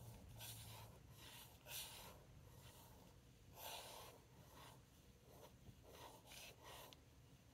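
Faint, soft swishes of a paintbrush stroking ink across paper while painting a swatch: a series of short strokes.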